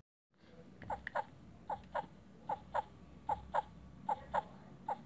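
Plush lamb toy's built-in sound module playing a crying, sobbing effect: short squeaky sobs that fall in pitch, in pairs repeated about once a second, starting about a second in.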